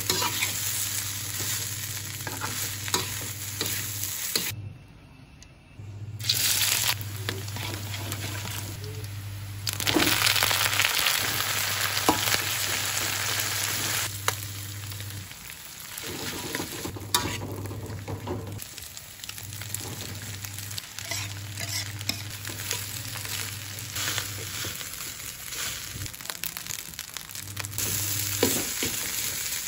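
Rice and greens sizzling in a hot wok while a metal spatula stirs and scrapes against the pan, with a short quieter gap about five seconds in.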